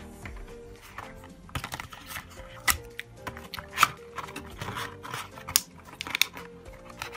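Background music with held notes, over sharp clicks and taps of a cardboard phone-box insert being handled and turned over. The loudest taps come about three and four seconds in.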